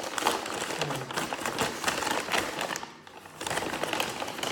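Kraft-paper shopping bag crinkling and rustling as it is handled and pulled open, with a short lull about three seconds in.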